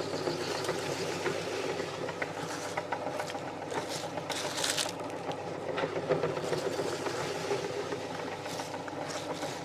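Light rattling and scattered clicks over a low background hiss, with the meat grinder's motor stopped.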